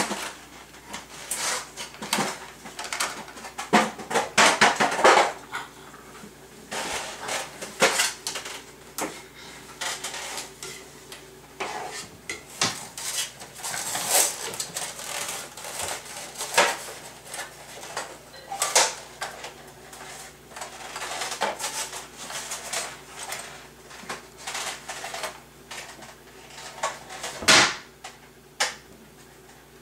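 Irregular clatter and knocks of kitchen utensils, cookware and cabinet doors being pulled about and dropped by a toddler, with one loud knock near the end.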